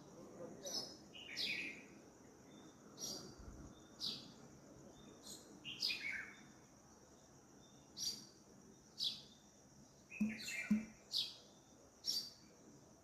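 Birds chirping in the morning: short high chirps that drop in pitch, repeated about once a second, over a faint steady high-pitched hiss.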